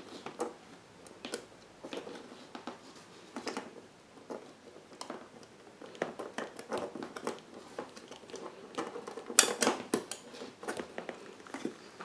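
Handling noise of electrical cables and wires being worked into a metal switch back box: scattered light clicks, scrapes and rustles of the wires against the box, with a louder clatter a little past the middle.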